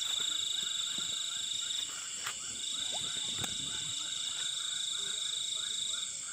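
Night chorus of insects and frogs: a steady high-pitched insect trill that breaks off briefly about two seconds in, over a run of short repeated calls, a few a second, with a few faint clicks.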